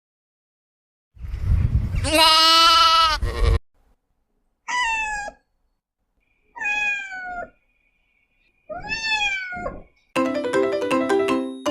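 A pet animal calls four times: one long, loud call, then three shorter calls with falling pitch. A short chiming tune starts near the end.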